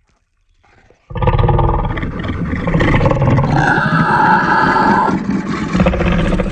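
Custom-made Distortus Rex creature roar: after about a second of near silence, a loud, long, layered roar sets in with a deep rumbling bottom and pitched tones above, a higher tone joining over the middle.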